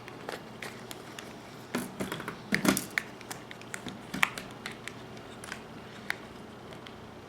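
Scattered small clicks and taps of hands handling LCD monitor parts, with a louder cluster of knocks about two and a half seconds in.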